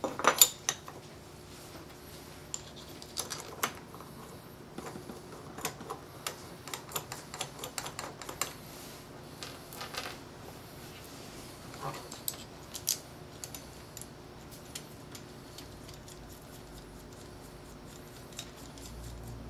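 Scattered light clicks and taps of small metal parts and screws being handled and fitted as an upright is mounted on a Jointmaker Pro saw's keel. The clicks thin out near the end.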